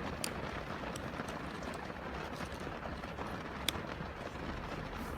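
Small clicks from a tool working the release spring of a 1974 Volkswagen Beetle's ignition lock cylinder, one sharper than the rest about three and a half seconds in, over a steady background hiss.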